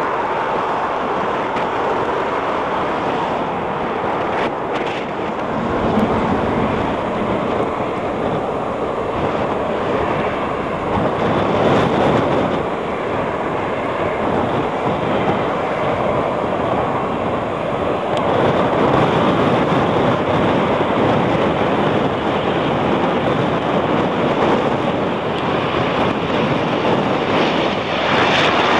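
Embraer EMB-120 Brasilia twin-turboprop airliner landing: a steady rushing roar of its engines and propellers, mixed with wind on the microphone, getting louder about two-thirds of the way through.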